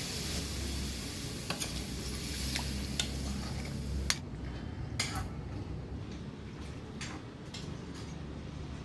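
Food sizzling in a cooking pot while a spoon stirs it, clicking against the pot now and then. The sizzle dies away about four seconds in, leaving only the odd clink.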